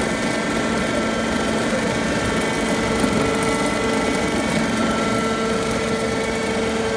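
Dazzini TCI260VH quarry chain saw running steadily while its cutting chain digs a vertical cut through sandy ground: a constant machine drone with a steady whine, holding the same pitch and level throughout.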